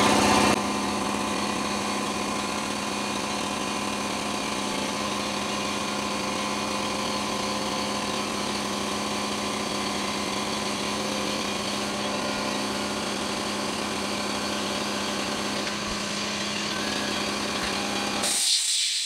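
Quincy QP5 reciprocating air compressor running steadily under load as it refills the tank. Near the end a short burst of hiss as it reaches cut-out pressure and shuts down.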